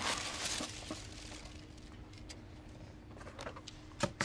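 A cardboard box being opened by hand, its flaps rustling at first, then fading to quiet room tone with a faint steady hum, a few small clicks and a sharp tap about four seconds in.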